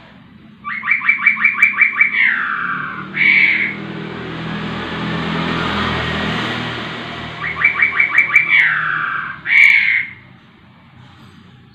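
A caged poksay rowo (a laughingthrush) sings the same loud phrase twice: a quick run of about nine repeated, even notes that slides into a falling slur, then one short separate note. Between the two phrases a rushing noise with a low hum swells and fades.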